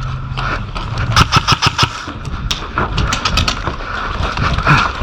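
Airsoft electric rifle (E&L AKS74U) firing two quick strings of sharp shots, about seven a second: one a second in and a shorter one about three seconds in.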